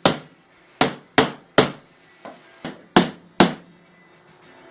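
Hammer blows on a part during a car teardown: six sharp strikes at uneven intervals, with two lighter taps in the middle.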